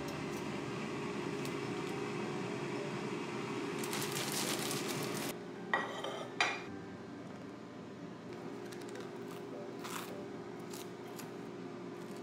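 Kitchen handling sounds over a steady low hum: two sharp knocks of a ceramic plate being set on a stone counter about six seconds in. Then a few lighter clinks of a knife against the plate as pesto is spread on toast.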